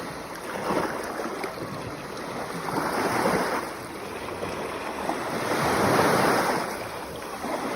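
Sea waves breaking and washing on the shore, the surf swelling and ebbing in surges about every two to three seconds.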